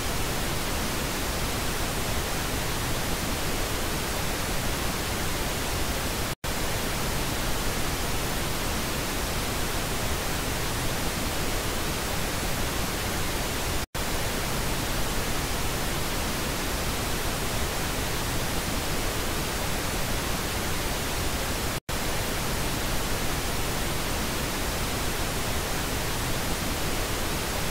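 Pink noise test signal: a steady, even hiss across the whole range, broken by three very short gaps roughly every seven to eight seconds as it switches between the left and right speaker channels.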